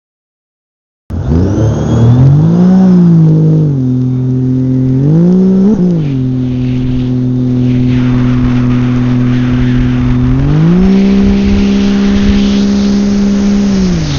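GPRXP personal watercraft engine starting to sound about a second in, revved up and down twice, then running at a steady pitch before climbing to higher revs and holding there for a few seconds, easing off near the end. Water rushes against the hull under the engine in the later seconds.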